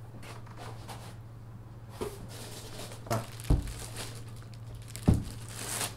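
Plastic wrap crinkling around a Magene T300 bike trainer as it is lifted out of its box and handled, with a few dull thumps, the loudest about three and a half and five seconds in, over a steady low hum.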